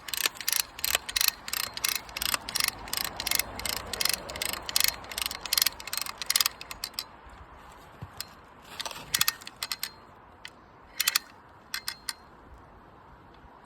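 A hand ratchet tightening a high-tensile support wire: a steady run of ratchet clicks, about four a second, for roughly six seconds. Then it stops, with a few scattered single clicks.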